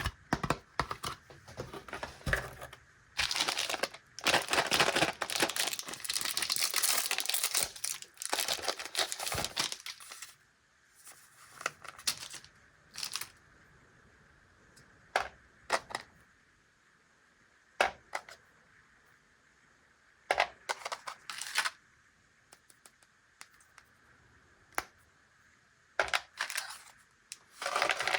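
Plastic candy packaging being crinkled and torn open in dense bursts for the first several seconds, followed by scattered small clicks and taps of handled wrappers and pieces, and another short crinkle near the end.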